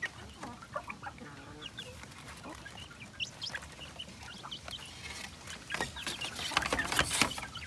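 Young native chickens clucking and peeping in scattered short calls while they feed in a wooden coop. Near the end, a brief clatter of bamboo slats being handled.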